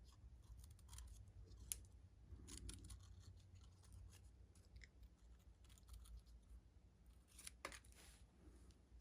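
Small, sharp paper snips fussy-cutting paper: a scatter of faint, quick snips, with two sharper ones a little under two seconds in and near the end.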